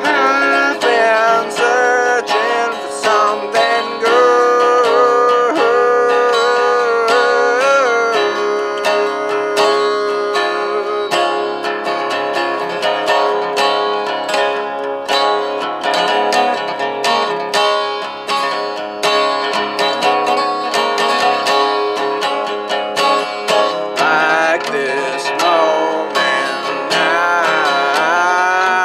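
Resonator guitar fingerpicked, a steady run of plucked notes. A man's voice sings over it in the last few seconds.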